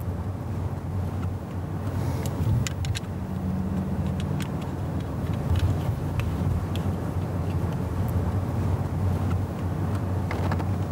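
Steady low road and engine noise inside a moving car's cabin, with scattered light clicks and taps, most of them between about two and five seconds in.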